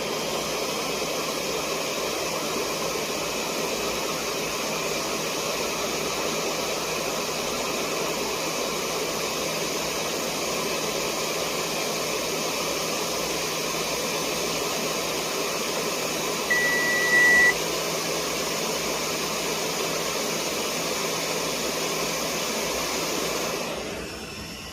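Hot air rework station blowing steadily while desoldering a tiny surface-mount resistor from a circuit board, with a single beep about a second long about two-thirds of the way through.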